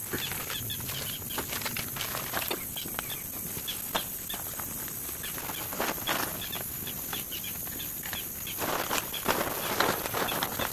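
Rustling and clicking of camping gear being handled, growing louder near the end, with faint bird chirps in the forest.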